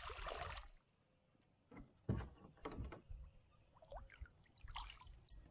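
A hooked bass splashing at the water's surface beside a kayak for about half a second, then a few scattered knocks and rubs against the kayak as the fish is brought in.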